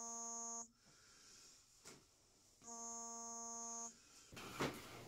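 An electronic buzzer gives two steady buzzing tones, each a little over a second long, about three and a half seconds apart. Near the end comes a rustle and a short knock.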